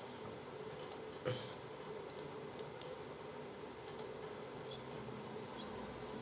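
Computer mouse clicks, several quick press-and-release pairs, with one duller soft knock about a second in, over a faint steady hum.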